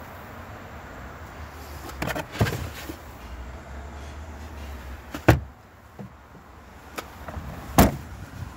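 Knocks and thumps from a Hyundai hatchback's boot being handled, its floor panel and trim moved around the under-floor storage tray. There are a few light knocks about two seconds in, then two heavier thumps, the second near the end.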